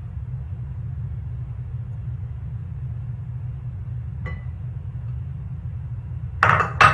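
Spoon knocking twice against a measuring cup, sharp clinks about half a second apart near the end, knocking peanut butter into a mixing bowl, with a faint tick a few seconds before. A steady low hum runs underneath.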